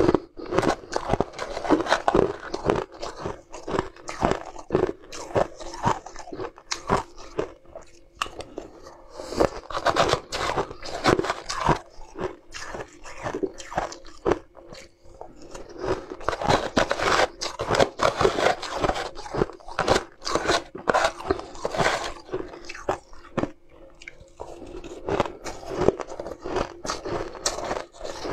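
Close-up crunching and chewing of mouthfuls of crushed frozen ice, a rapid, irregular run of sharp crunches.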